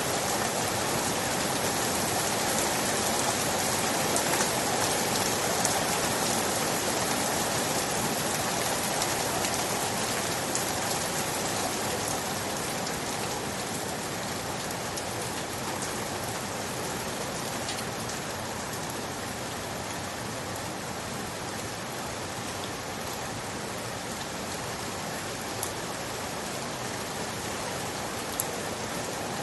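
Steady rain falling on a surface, a dense hiss of many small drop ticks, easing slightly after the first ten seconds or so, with a couple of single louder drips near the end.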